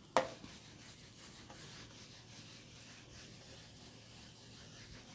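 A sharp click just after the start, then a whiteboard eraser wiping faintly and steadily across the whiteboard's surface.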